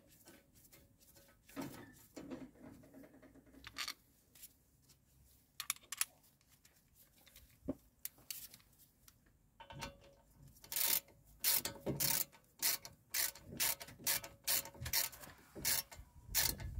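Hand ratchet clicking as it turns a 7 mm hex bit in a brake caliper bolt: a few scattered clicks at first, then from about ten seconds in a steady run of quick clicks, about three a second.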